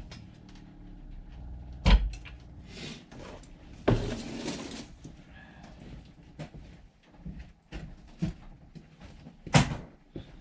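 A few sharp knocks and clunks of things being handled, with a short scraping rustle between. The loudest knocks come about two seconds in and near the end.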